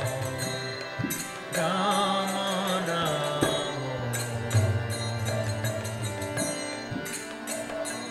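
Devotional kirtan music: chanted singing over a steady low drone, with an evenly repeating high-pitched beat.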